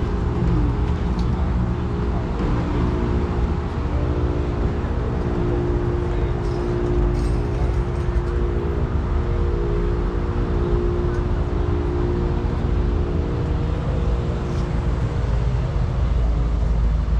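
A steady low mechanical hum, like a running engine, over a constant heavy low rumble.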